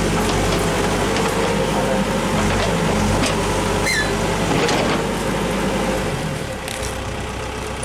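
Backhoe loader's diesel engine idling with a steady low drone, easing off and growing quieter about six seconds in.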